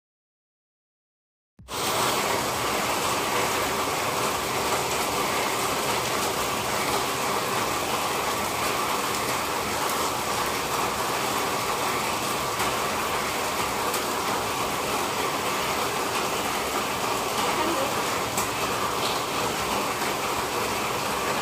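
Heavy rain falling steadily on leaves and gravel, an even hiss that starts about a second and a half in.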